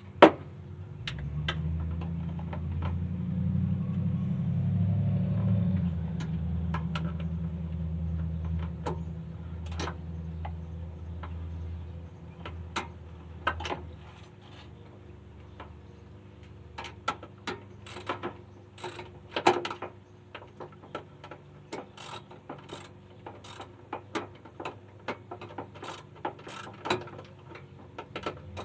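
Irregular metallic clicks and clacks of hand tools at work on a car's front end. A low rumble swells early on and fades out about twelve seconds in.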